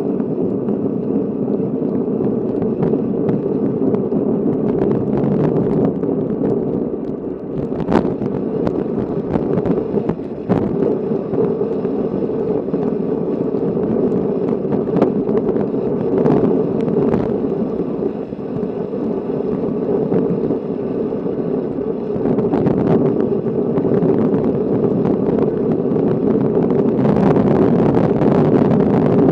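Steady wind rush on the microphone and road noise from a road bike riding on a wet city street among traffic, with a few sharp clicks or knocks, the loudest about eight seconds in. The rushing grows louder near the end.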